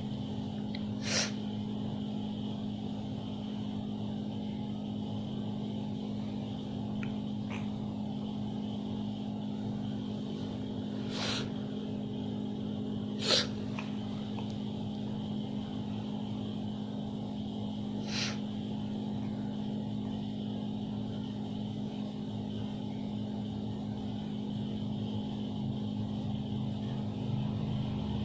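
Four short, sharp, breath-like puffs from a dying cat, irregularly spaced with long gaps between them, the third the loudest; irregular gasps like these are typical of a cat's last breaths. A steady low hum runs under them.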